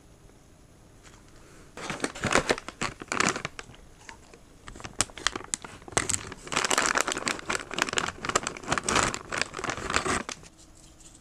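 Plastic dog-treat bag crinkling as hands handle it and pull it open. It comes in two spells: a short one about two seconds in and a longer, louder one from about five seconds in, stopping shortly before the end.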